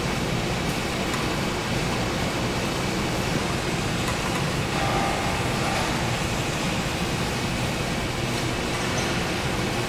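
Steady din of factory machinery: an even, unbroken mechanical noise, with a faint brief tone about five seconds in.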